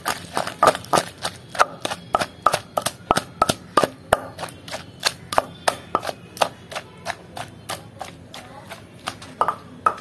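Wooden pestle pounding in a stone mortar (rolu), about four strokes a second: each stroke a sharp knock on the stone, damped by a wet chutney of raw cucumber pieces being crushed coarsely.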